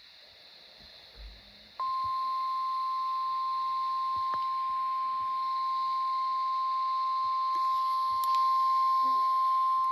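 NOAA Weather Radio warning alarm tone: a single steady beep at about 1050 Hz that starts about two seconds in and holds on. It is the alert signal that comes before an urgent weather warning is read out.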